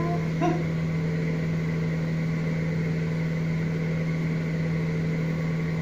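A steady machine hum with a constant low tone that does not change, and a short voice sound about half a second in.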